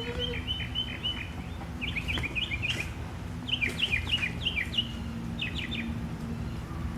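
A small bird chirping in four quick runs of short, high, falling notes, over a steady low hum.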